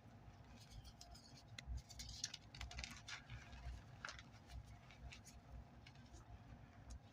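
Reformed gym chalk being crushed and crumbled: faint, irregular crackles and crunches.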